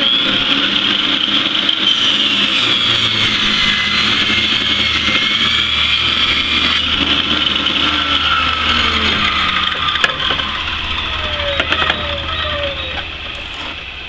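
Portable benchtop table saw switched on and ripping a dog-eared pressure-treated fence board lengthwise down the center, its steady high whine running under load. Near the end it is switched off and the blade winds down with a falling whine.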